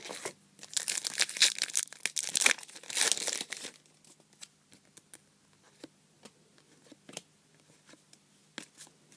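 A trading-card pack wrapper being torn open and crinkled for about three and a half seconds, then faint scattered clicks of the cards being handled.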